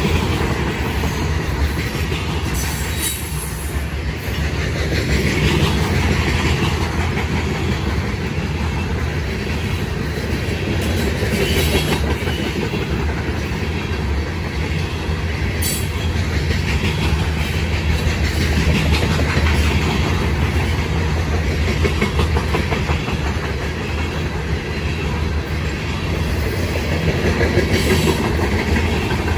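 Freight train of covered grain hopper cars rolling past at speed: a steady, loud rumble of steel wheels on the rails, with a few sharp clicks.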